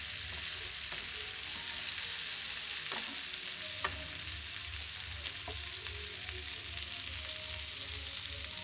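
Sliced green capsicum, carrot and onion sizzling steadily in oil in a non-stick frying pan. A few light scrapes and taps come from a wooden spatula as the vegetables are stirred.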